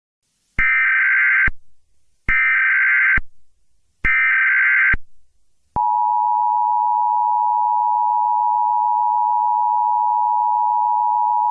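Emergency Alert System signal: three bursts of warbling SAME header data tones, each about a second long, then about halfway through the steady two-tone EAS attention signal starts and holds. It opens a civil danger warning alert.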